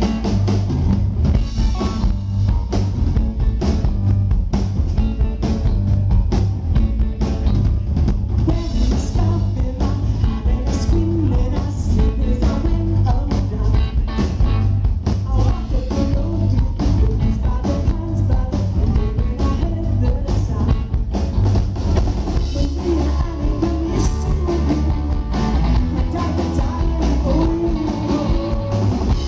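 Live rock band playing loudly, with drums, bass, guitar and singing, recorded from the audience with a heavy, boomy bass.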